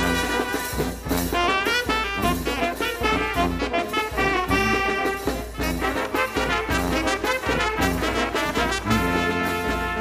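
Small brass band with snare and bass drum playing a lively tune: trumpets, trombones and saxophone over tubas, with a run of quick notes. About nine seconds in the band settles onto a long held chord.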